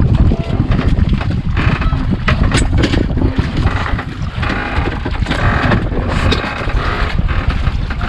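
Sea wind buffeting the microphone on an open outrigger fishing boat, with scattered knocks and rustles from handlines and spools being handled.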